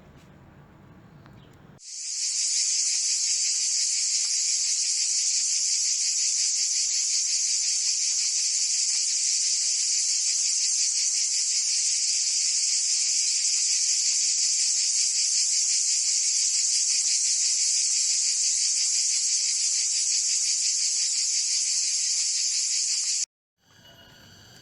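Loud, steady, high-pitched insect buzz with a fine rapid pulse. It swells in about two seconds in and cuts off abruptly near the end.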